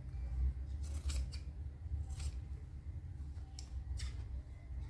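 Large tailor's shears snipping through cotton cloth, a handful of separate cuts a second or so apart, trimming the excess fabric off a stitched strip panel. A low steady hum runs underneath.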